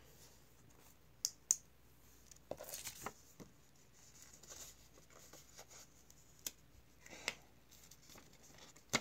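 A sheet of paper being handled and bent by hand: scattered soft rustles and a few sharp clicks.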